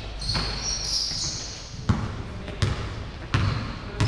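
Basketball dribbled on a sports-hall floor: a run of bounces, most about three-quarters of a second apart, with a short high squeak in the first second.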